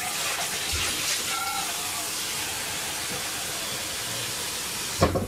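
Kitchen tap running, filling a vessel with water for the pot: a steady hiss that stops suddenly with a knock about five seconds in.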